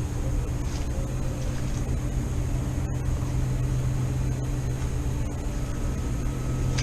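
Steady low mechanical hum at a constant pitch, like a running motor, with a faint high whine above it and a brief dropout about three seconds in.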